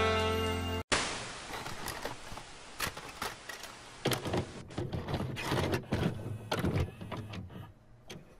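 Music cuts off about a second in, followed by a short burst of tape-static hiss that fades. Then comes a run of mechanical clunks and clicks from a VCR taking in and loading a videotape.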